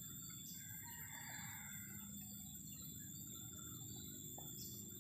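Faint outdoor background noise with a distant bird call about a second in.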